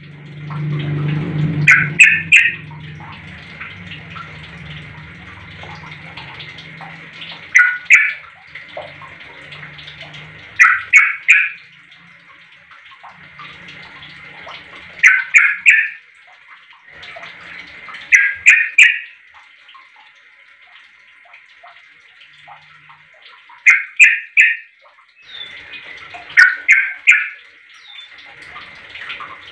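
Yellow-vented bulbul (trucuk) calling: loud bursts of three or four quick bubbly notes, repeated every few seconds, about eight times, over a steady background of fainter chatter.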